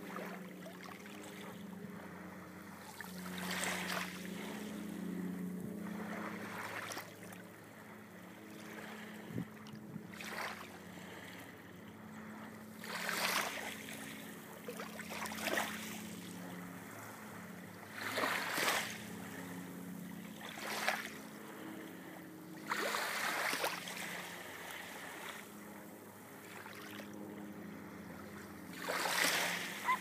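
Small, gentle waves lapping and washing over a pebbly shore, each wash a brief swell of hiss coming every two to five seconds, over a steady low hum.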